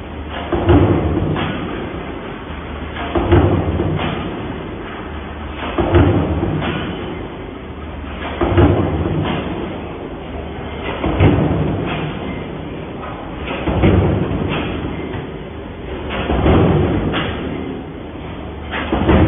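250-ton stamping press with a progressive die cycling on coil steel fed by a decoiler straightener feeder. It gives a heavy stamping clank about every two and a half seconds, eight in all, each fading off before the next, over a steady machine hum.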